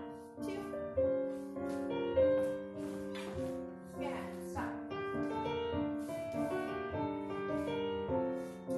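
Ballet class piano accompaniment: recorded piano playing chords and a melody in a steady, unhurried rhythm.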